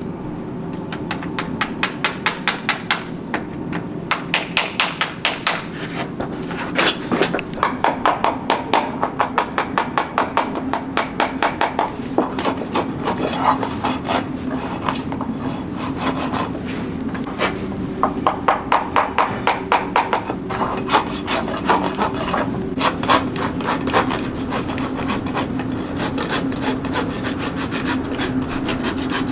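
A farrier's hoof rasp and hammer working a racehorse's shod hoof, in a long run of quick, regular strokes, a few a second, with brief pauses.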